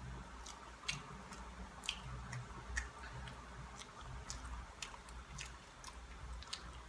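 Close-up wet chewing and lip-smacking while eating soft banana: a string of sharp, irregular mouth clicks.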